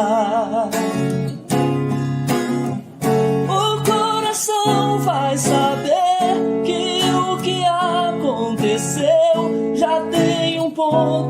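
Acoustic guitar strumming chords under a sung melody with vibrato, in a Brazilian bar-style acoustic ballad.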